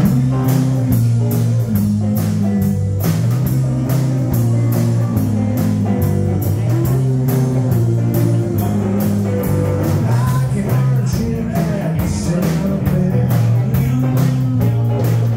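Live rock trio playing: electric guitar, electric bass and drum kit, with a steady drum beat and a repeating bass line.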